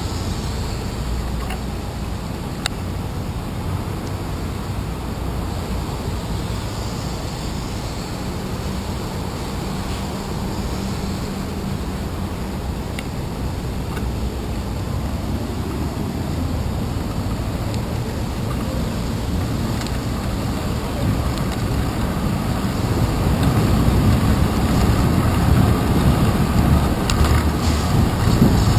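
Steady wind and road noise picked up by a handlebar-mounted GoPro Hero 2 on a bicycle riding over wet city streets, mixed with the sound of motor traffic. The noise gets louder near the end as the bike rides close beside a van and a box truck.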